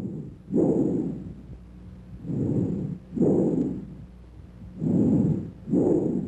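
Bronchial breath sounds heard through a stethoscope: loud, hollow, blowing breath noise over the trachea, inspiration and expiration each heard as a separate breath phase with a short silent gap between them, repeating over several breaths.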